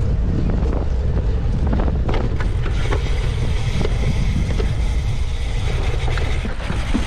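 Wind buffeting the microphone of a cyclocross racer's camera while riding at race pace, a steady low rumble with scattered clicks and rattles from the bike over rough ground.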